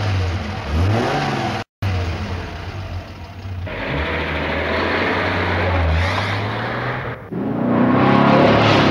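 Pickup truck engine revving and running, rising in pitch about a second in, then holding a steady drone over a noisy rush, and swelling louder again near the end.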